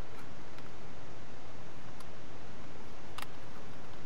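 A few light clicks and taps as slotted wooden puzzle pieces are handled and fitted together with rubber bands, the sharpest click about three seconds in, over a steady hiss.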